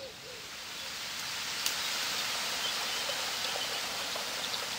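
Water rushing down a small rocky stream and waterfall: a steady hiss that swells up over the first couple of seconds and then holds level, with a faint click about a second and a half in.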